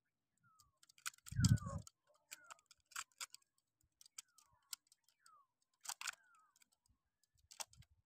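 Caged chukar partridge giving soft, short calls that fall in pitch, several times, amid scattered sharp clicks. A brief dull thump about a second and a half in is the loudest sound.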